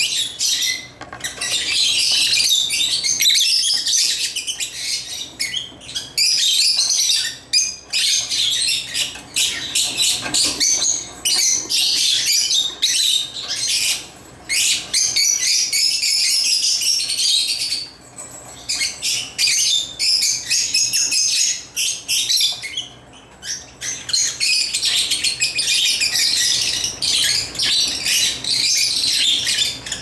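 African lovebirds chattering: a dense stream of rapid, high-pitched chirps, almost unbroken apart from a few short lulls.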